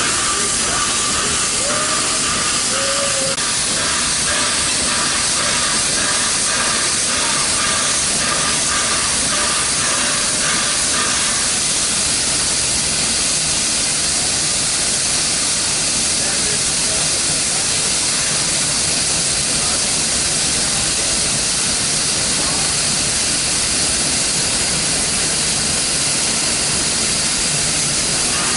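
Victorian Railways R class 4-6-4 steam locomotive R761 standing still, with steam escaping low around its cylinders in a loud, steady hiss.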